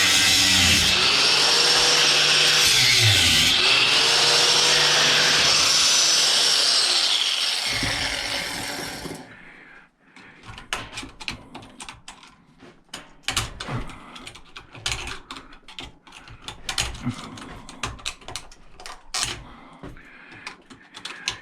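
Power tool cutting into a brass-and-steel scrap part, its motor pitch dipping and recovering under load, then winding down about eight seconds in. After that, scattered clicks and knocks of metal parts being handled and worked.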